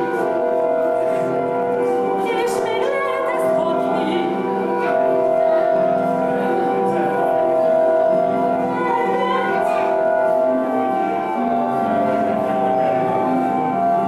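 Contemporary opera music: long held notes changing every second or two, with a woman's operatic singing wavering with vibrato above them.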